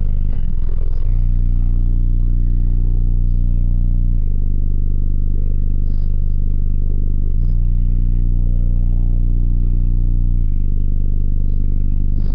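Two 18-inch car-audio subwoofers in a quarter-wave T-line box playing deep, sustained bass notes loudly inside the vehicle. The note shifts about every three seconds, with light rattling from the cabin.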